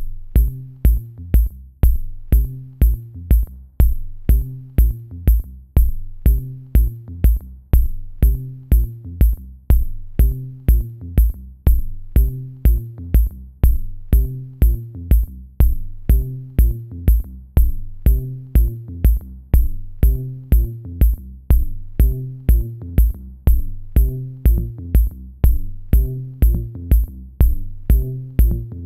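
Electronic background music with a steady drum-machine beat of about two beats a second over a repeating bass line.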